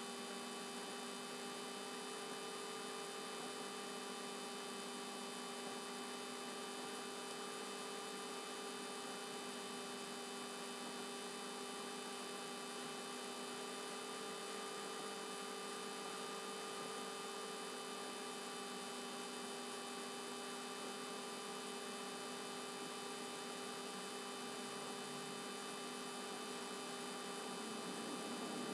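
Steady electrical hum made of several unchanging tones over a faint hiss, the noise of the recording equipment, with no other sound standing out.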